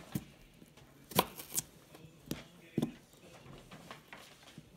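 Kitchen knife slicing small red potatoes into rounds on a plastic cutting board. There are about five sharp, unevenly spaced knocks as the blade goes through each slice and strikes the board.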